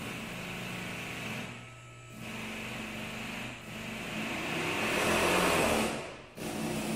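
A small motor running in stretches of one to two seconds, stopping briefly between them and loudest a second from the end.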